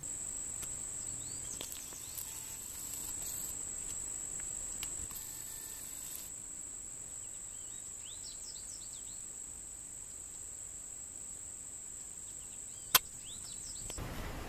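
Insects trilling in a steady high-pitched drone, with a few short falling bird chirps now and then and one sharp click about a second before the end.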